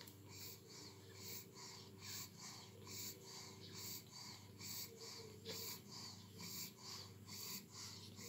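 Ten-day-old pug puppies nursing: faint, rhythmic snuffling and suckling, about two soft pulses a second.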